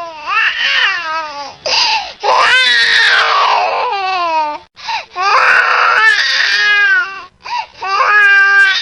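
Baby crying hard: a run of loud wavering wails, with short gasping breaths between them, and some wails strained and rasping.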